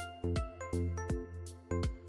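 Background music: an upbeat instrumental track with a steady beat, plucked notes and a bass line.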